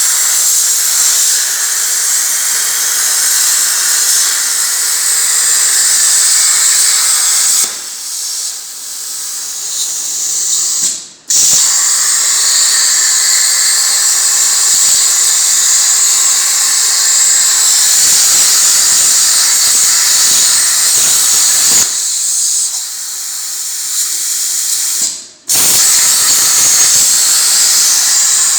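Air-plasma cutter on a CNC table cutting sheet metal: a loud, steady, high hiss from the plasma torch. The arc cuts out and restarts about 11 seconds in and again at about 25 seconds, with quieter stretches before each restart as the torch finishes one cut and pierces the next.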